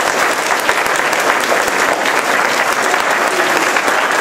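Audience applause: many people clapping at once in a dense, steady patter.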